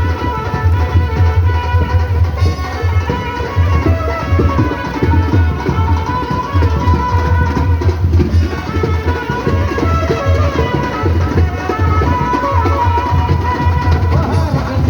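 Loud traditional Indian music with a heavy, continuous drum beat under a melody line.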